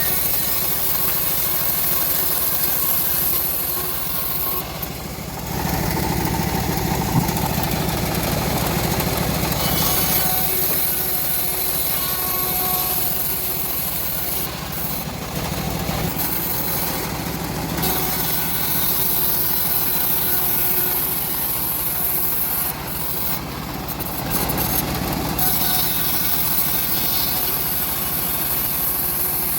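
Homemade engine-driven bandsaw mill sawing through a teak log: the engine runs steadily under the hiss and rasp of the blade in the wood. The cutting noise eases and picks up again a few times.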